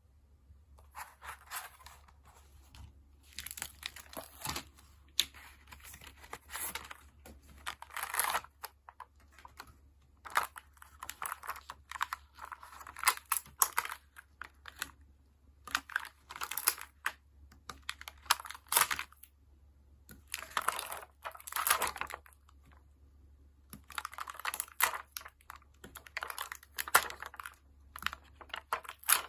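Stickers being peeled off their backing sheets and handled on paper journal pages, crinkling and crackling with small taps and clicks in short bursts separated by brief pauses.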